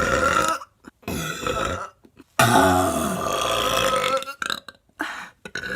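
A woman burping loudly, several long drawn-out belches in a row with short pauses between them, the longest lasting about two seconds.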